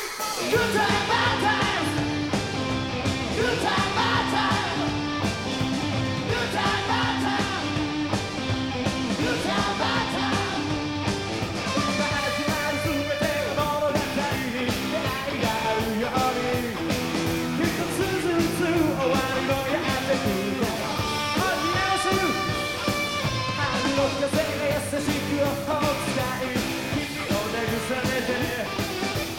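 A rock band playing live: a male singer singing into the microphone over electric guitars, bass and drums.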